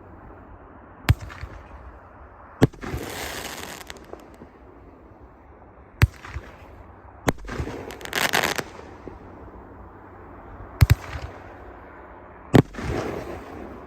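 Three shots from a 500-gram consumer firework cake (repeater). Each is a sharp launch report followed about a second and a half later by a loud break that trails off into a second or so of hissing crackle.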